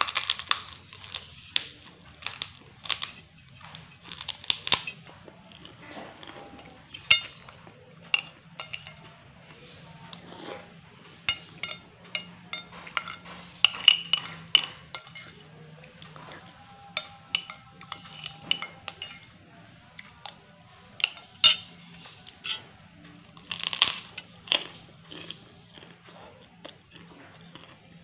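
Close-up eating sounds of a person eating rice by hand from a glass plate: irregular clicks and clinks of fingers and food against the glass, with chewing and the crunch of kerupuk crackers.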